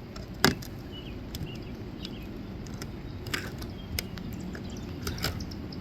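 A single sharp knock about half a second in, followed by a few lighter, scattered taps and clicks over a low steady background.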